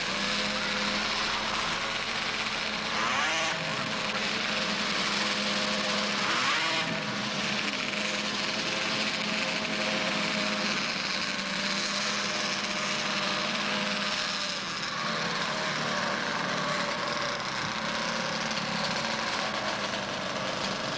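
Two-stroke snowmobile engines running hard on a grass drag pass, with rising sweeps in pitch about 3 and 7 seconds in.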